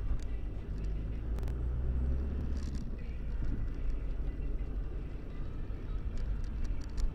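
Vehicle driving on the open road, heard from inside the cab: a steady low engine and tyre rumble, with a few brief clicks.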